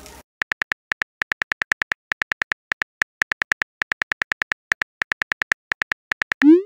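Smartphone keyboard clicks as a text message is typed: a fast, uneven run of short identical ticks with a few brief pauses. Near the end a short rising swoosh as the message is sent.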